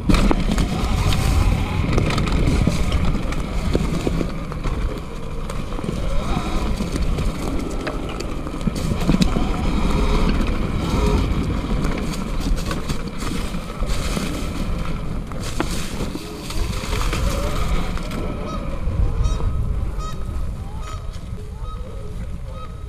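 Geese honking repeatedly over the low rumble and wind noise of an e-bike ridden on a trail. The riding noise eases near the end, leaving the honks clearer.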